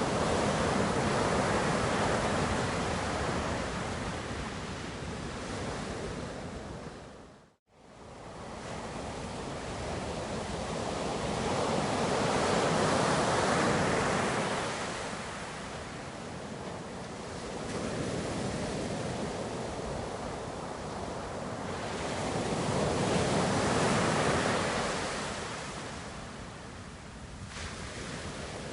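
Ocean surf: waves breaking and washing ashore, a steady rushing that swells and fades about every ten seconds. About seven and a half seconds in, the sound cuts out for a moment and comes back.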